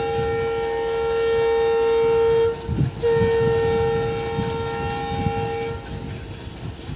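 Alco diesel locomotive sounding its horn in two long, steady blasts with a short gap between, over the low chugging rumble of its engine pulling away.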